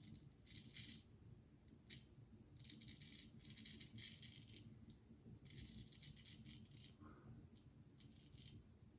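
Faint scraping of a Thiers-Issard frameback straight razor cutting through lathered stubble, in several short strokes with pauses between them.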